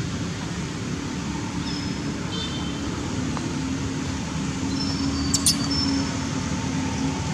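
Steady low outdoor rumble, with a brief high-pitched chirp about five seconds in.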